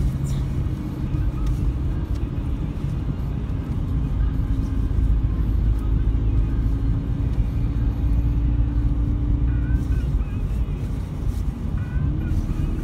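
Car engine and tyre noise heard from inside the cabin while driving: a steady low rumble with a held engine note that rises slightly near the end.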